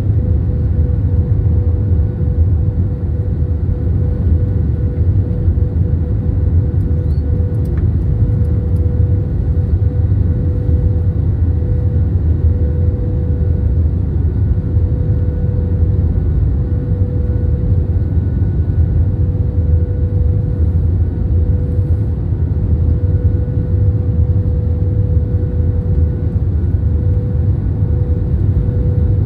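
Steady cabin noise inside an Airbus A321 airliner: a loud low rumble of engines and airflow with a steady hum held at one pitch.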